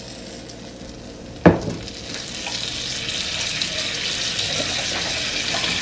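Shrimp sizzling in butter and oil in a frying pan. A single sharp knock comes about a second and a half in, and after it the sizzling grows louder.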